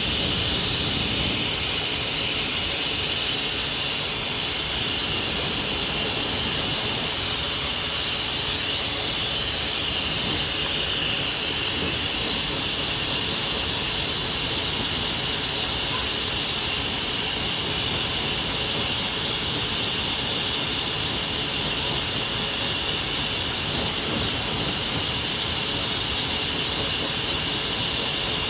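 Dog grooming blow dryer running steadily, a constant rushing hiss of air.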